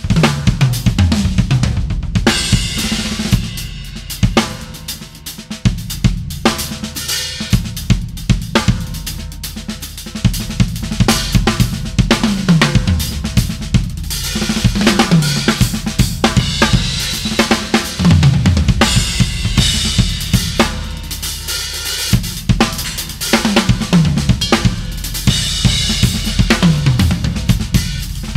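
A large acoustic drum kit played with sticks: a fast groove on kick drum, snare and hi-hat with crashing cymbals, broken every few seconds by tom fills.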